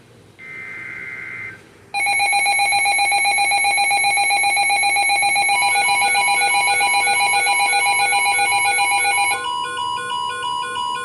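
Emergency Alert System alert tones: a short burst of the SAME digital header, a two-tone buzzing data screech. About two seconds in, a loud, rapidly pulsing alert tone starts, and near the end it switches to a different pattern of beeping tones.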